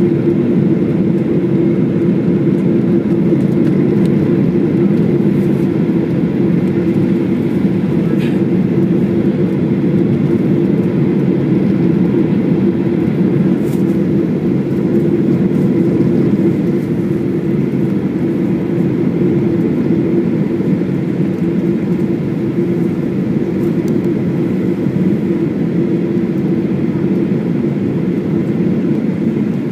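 Steady jet-engine and airflow noise inside a jet airliner's cabin on final approach, easing slightly from about halfway through as the plane descends toward the runway.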